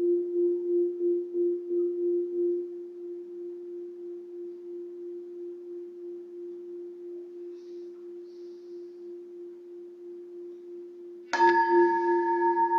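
Singing bowl ringing with one steady tone that wavers in loudness for the first couple of seconds, then fades slowly. Near the end it is struck again and rings louder, with bright higher overtones over the same tone.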